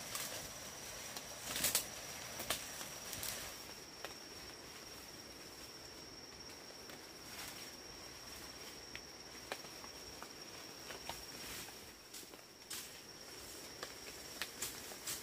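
An insect's steady, high-pitched trill, with scattered rustles and clicks, the loudest in the first few seconds.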